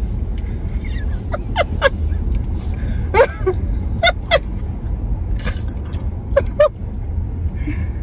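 Steady low rumble of a car's cabin, engine and road noise, with short high chirp-like sounds now and then, mostly in pairs.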